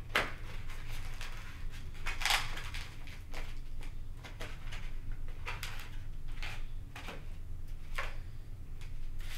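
Hands handling a foam RC jet at the nose and battery bay on a tabletop: scattered soft clicks, scrapes and rustles, one louder about two seconds in, over a low steady hum.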